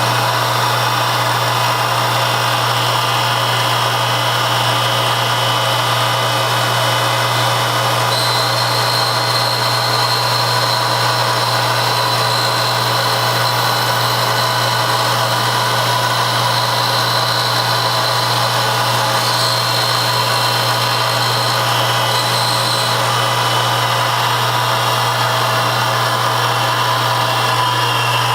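Machine tool running steadily while machining, with a high whine that comes in about eight seconds in and stops around twenty-two seconds.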